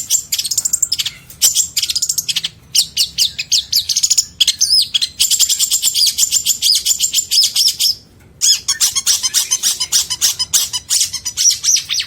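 Long-tailed shrike (cendet) singing a fast, chattering song of rapid high notes, a song filled with mimicked calls of other birds. It sings in runs of a few seconds, breaking off briefly about two and a half, four and eight seconds in.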